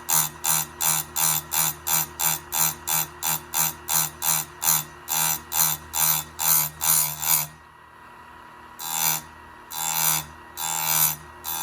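Electric chainsaw chain grinder running, its wheel dabbed against a chain tooth in quick short passes, about three a second, then after a brief pause ground in with three longer strokes. It is dressing the tooth's side plate and gullet.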